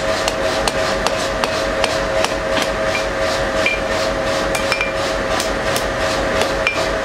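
Hand hammer forging a red-hot twisted steel bar on an anvil: a steady run of blows, about two to three a second, with a short metallic ring after some strikes. A steady hum runs underneath.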